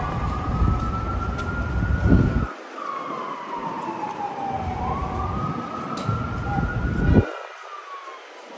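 Emergency vehicle siren on a street, wailing through two slow cycles: each rises quickly, then slides slowly back down. Under it a loud low rumble cuts out abruptly twice, about two and a half seconds in and again near seven seconds.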